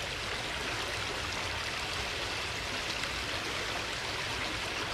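Steady rushing of running water, an even, unbroken noise with nothing standing out above it.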